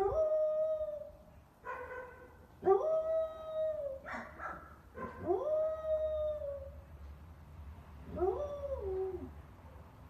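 Samoyed howling: about four drawn-out howls, each swooping up in pitch and then holding or sliding down, with short yelps between them. The last howl falls away in pitch.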